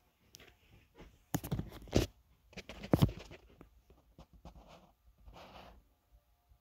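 A few irregular knocks and thumps, loudest about two and three seconds in, with a short scratchy rustle near the end: handling noise as the phone is moved around.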